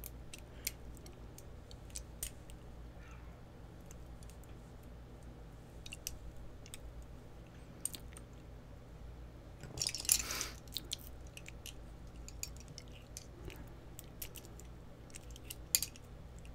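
Small metal clicks and scrapes of a thin pick tool working at a small pin-tumbler lock cylinder, probing for its retainer pin. There is a brief burst of metallic rattling and scraping about ten seconds in, and a sharp click near the end.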